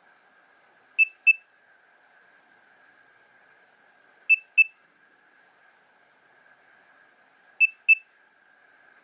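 Nokia 3100 mobile phone ringtone: a pair of short, high beeps repeating about every three seconds, three pairs in all, over a faint steady hiss.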